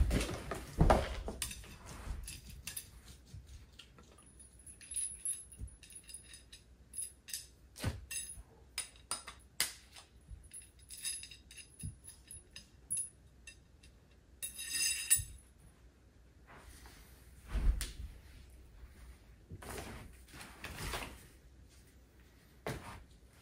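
Parts of a kids' ride-on car being handled and fitted during hand assembly: scattered clicks and plastic knocks with light metallic clinks. A ringing metallic clink comes about two-thirds of the way through, and heavier knocks come near the start and about three-quarters through.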